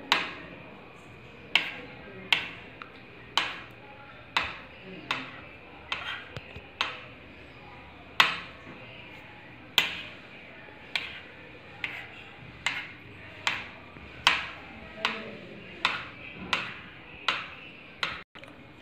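A steel kitchen knife blade tapping against a granite countertop as it is worked under thin strips of dough to gather them into pleats. There are about twenty sharp clicks with a short ring, a little more than one a second.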